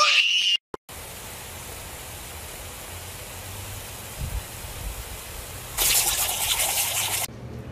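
Lawn sprinkler spraying water in a steady hiss. Near the end the spray turns louder and harsher for about a second and a half, then cuts off suddenly.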